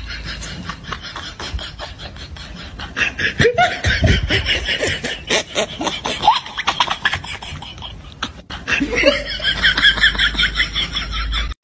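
A woman making rapid smacking, chomping mouth noises, several a second, broken by short bursts of laughter.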